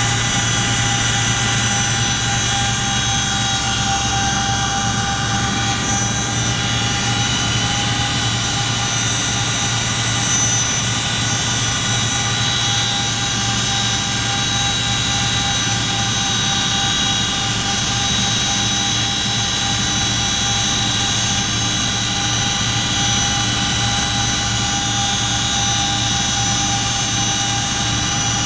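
Cabin noise inside a CH-47 Chinook tandem-rotor helicopter in flight: the twin turboshaft engines and rotor transmissions give a loud, steady drone, several high steady whines over a low hum.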